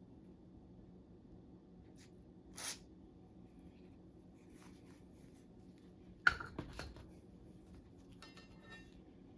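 Barbell parts being handled while they are greased. There is one brief hiss, then a sharp metallic clink about six seconds in with a few smaller clinks after it, and faint light rattling near the end.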